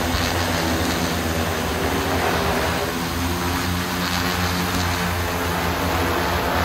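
Large quadcopter drone's four rotors running with a steady buzzing hum as it hovers low and descends to land.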